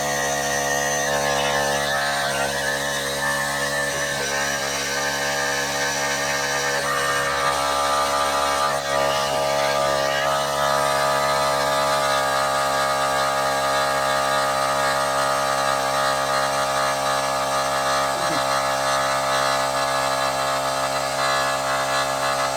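Mini air compressor from an emergency tire repair kit running steadily with an even motor hum, pumping air into a motorcycle tire.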